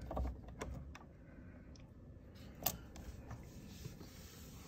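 Faint handling noise with a few light clicks, the sharpest about two and a half seconds in, as multimeter test probes are moved on and off the circuit breakers of an RV breaker panel.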